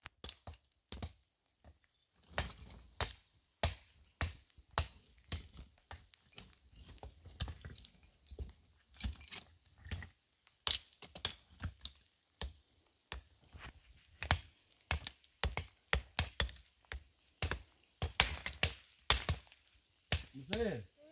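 Loose flat stones knocking and clinking against one another as they are picked up and set down by hand: irregular sharp knocks, several a second.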